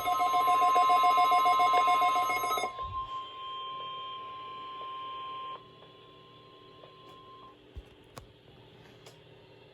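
Weather-radio emergency alert tones: a loud, rapidly pulsing electronic alarm that cuts off about two and a half seconds in. A steady single tone runs under it and carries on more faintly until about two seconds before the end, leaving only low hiss.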